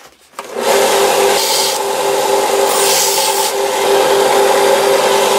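Narrow bench belt sander switched on, its motor starting and running steadily with a constant hum. A turned wooden piece is pressed against the moving abrasive belt twice, each time a rasping hiss over the motor.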